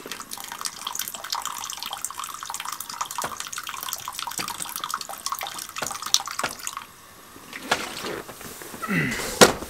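Water poured in a thin stream from a plastic water bag into a glass pot, splashing and trickling steadily for about seven seconds before it stops. A sharp knock sounds near the end.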